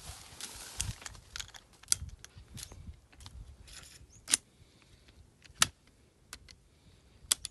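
A .36 calibre revolver's action clicking as it is handled: a run of sharp metallic clicks and rattles, with single louder clicks about two, four, five and a half and seven seconds in.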